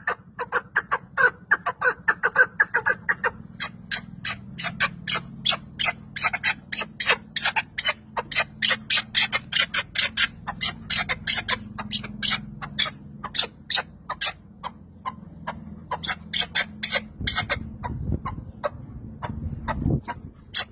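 A chukar partridge calls in a fast, unbroken run of short chuck notes, about three or four a second. Its voice is hoarse and choking as it calls, as if it may give out after a few more rounds. A low rumble sits under the last few seconds.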